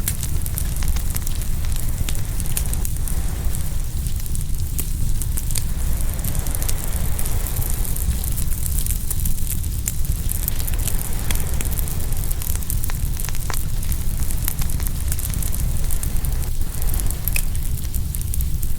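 Open wood fire crackling and popping, with a steady low rumble. Ocean surf washes in and out behind it, swelling and fading over several seconds.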